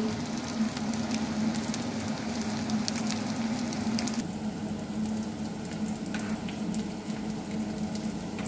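Tuna nuggets shallow-frying in hot oil in a nonstick pan: a steady sizzle full of fine crackling pops. About four seconds in the sizzle turns duller as its high crackle drops away.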